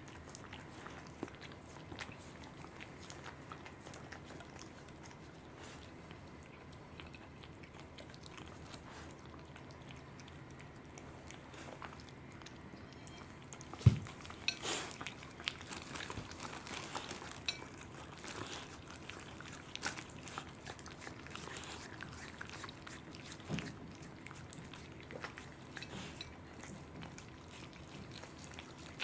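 A cat and a Welsh corgi eating raw salmon: soft wet chewing with many small clicks of teeth and mouths, and one sharp knock about halfway through.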